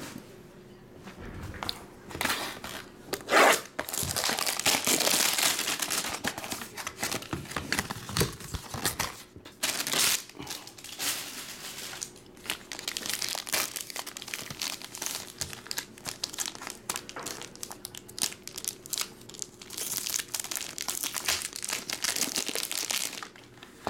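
Plastic shrink wrap and packaging crinkling and tearing as sealed trading-card boxes and packs are unwrapped by hand, with the loudest rip about three seconds in.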